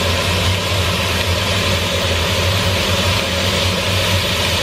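Flank steak sizzling steadily as it sears in a hot grill pan, over a steady low hum.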